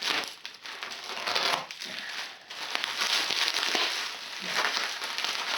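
Plastic packing wrap crinkling and crackling as it is handled and pulled away from a wooden radio cabinet.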